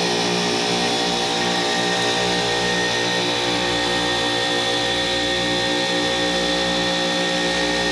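Supermarket refrigeration rack running steadily: a constant machine hum with a faint steady high whine above it, typical of the rack's compressors.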